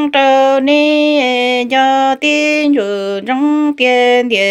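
A woman singing kwv txhiaj, Hmong sung poetry, alone and unaccompanied: long held notes that step and slide downward, broken by short pauses for breath.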